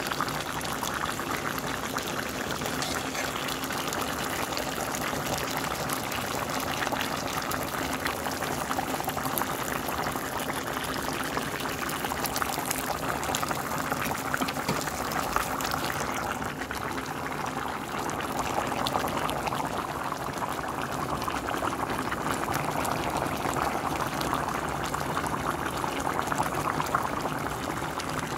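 Pot of green beans, potatoes and ham hock boiling in its broth: steady bubbling with many small pops.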